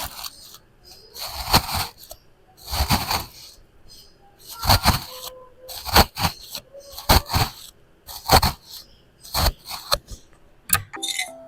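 A series of about eight short scraping and rustling noises, roughly one a second, from hands-on food preparation in the kitchen.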